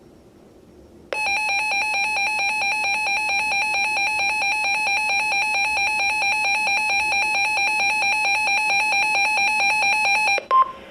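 A weather radio's built-in alert alarm sounding for an incoming severe thunderstorm warning: loud electronic beeping that warbles rapidly and evenly between two pitches. It starts about a second in and runs about nine seconds. It cuts off near the end, followed by a brief steady tone.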